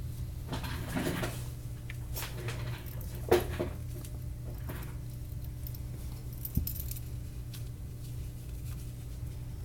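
Small objects being handled on a hard work surface: soft rustles and light clicks, with a sharp click about three seconds in and another about six and a half seconds in. A steady low hum runs underneath.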